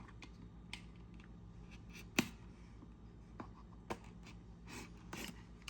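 A few faint, scattered clicks and taps, one sharper about two seconds in, over a low steady hum.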